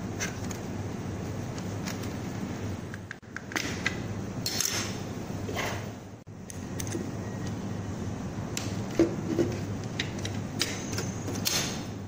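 Plastic handling noises from a black plastic birdhouse-shaped bark-controller casing and its white plastic cover being turned over and fitted. Scattered scrapes and clicks, the loudest about nine seconds in, sound over a steady background hiss.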